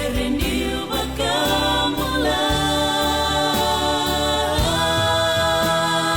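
Choir singing a gospel song in harmony, holding long chords that change every second or two.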